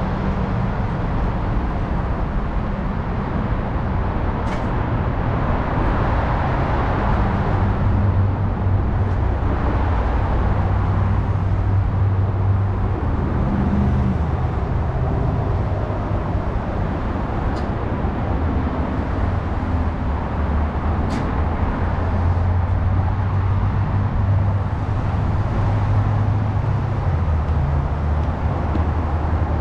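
Steady road traffic noise: a continuous wash of passing cars and trucks with a low engine drone that shifts as vehicles go by.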